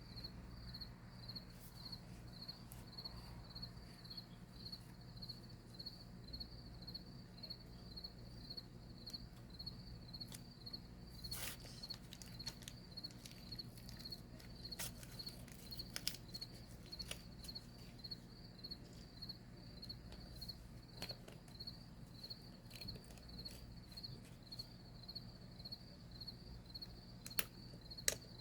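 Cricket chirping steadily at about two chirps a second, over a low steady hum, with a few scattered sharp clicks.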